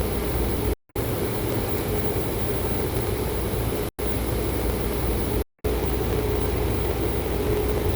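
Steady machine hum with an even hiss, a low drone and a faint higher tone, cut off to silence three times for an instant, about one, four and five and a half seconds in.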